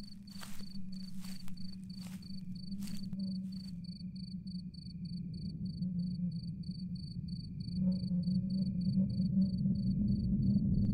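A cricket chirping in a fast, even pulse, over a low steady drone of music that grows louder near the end. Footsteps on dry forest ground sound in the first few seconds.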